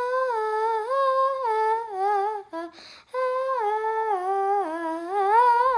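A girl humming a wordless vocal exercise in two long phrases, each wandering from a higher note down to lower ones. There is a short breath about halfway.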